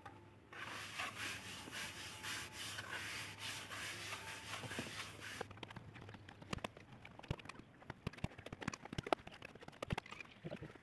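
Hand plastering of a brick wall with a trowel and cement mortar. A rough, gritty scraping runs for about five seconds. Then comes a run of sharp, uneven taps and slaps as mortar is thrown onto the bare bricks and worked in.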